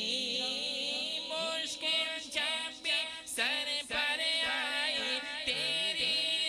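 Male qari singing an Urdu naat into a microphone, in long notes that waver and glide up and down with few breaks between them.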